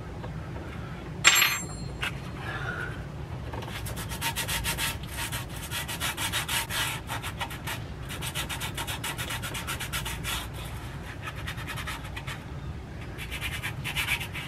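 A brief loud clack about a second in, then a long run of quick back-and-forth rubbing strokes, worked by hand against a hard surface in a boat's engine space.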